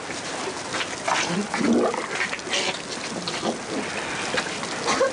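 Elephant being hand-fed from a plastic bag, its trunk snuffling and the plastic crinkling in a string of short crackles, with a few short low sounds about one and a half seconds in.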